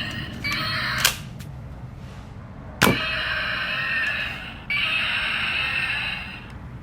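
Electronic dinosaur-roar sound effects from a toy soft-dart gun's small speaker, playing in several stretches of a second or two, with two sharp clicks between them.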